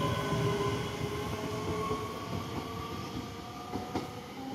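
Passenger train moving away along the line, its rumble and steady whine fading. A couple of sharp clicks come near the end.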